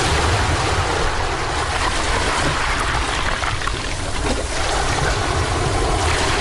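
Sea waves washing up a sandy beach: a steady, loud rush of surf.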